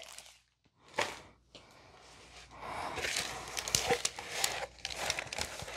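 Rustling and crinkling of a rolled diamond painting canvas being taken out of its clear plastic sleeve and unrolled, with many small crackles, starting about two and a half seconds in. One light tap comes about a second in, before the rustling.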